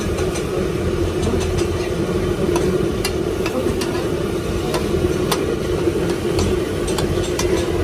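Cooking clatter at a liver fry: irregular sharp clinks of a metal spatula striking the pan, over a steady low hum.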